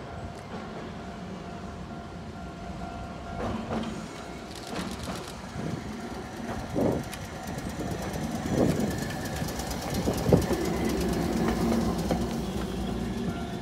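Hankai Tramway Mo 161, a 1928-built streetcar, running along street track and growing louder as it comes close. Its wheels give a few loud clanks on the rail joints.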